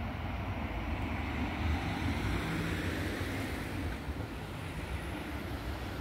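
Steady rumbling hiss of town street ambience at night, with distant vehicle noise and no single sound standing out.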